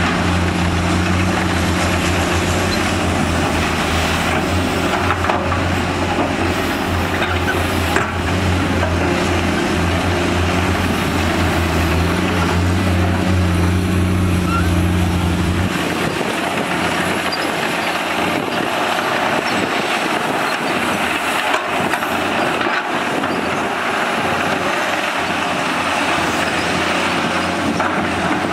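Diesel engines of a Komatsu PC210 hydraulic excavator and a crawler bulldozer running under load while digging and pushing sand. A steady low engine drone cuts off abruptly about halfway through, and a lighter machine noise continues.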